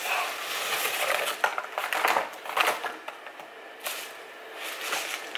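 Yellow padded paper mailer being torn open and handled: busy crinkling and rustling with irregular sharp crackles, heaviest in the first half and quieter later on.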